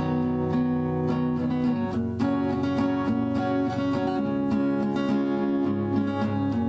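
Background music: acoustic guitar strumming at a steady rhythm.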